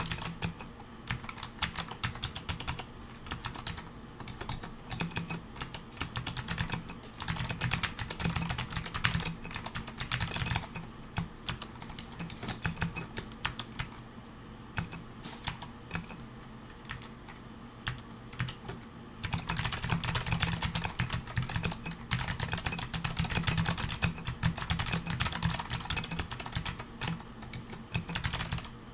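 Typing on a Pearl 40% mechanical keyboard with clicky Amber Alps switches: fast runs of sharp key clicks. The typing thins to scattered keystrokes in the middle, then picks up into a long fast run.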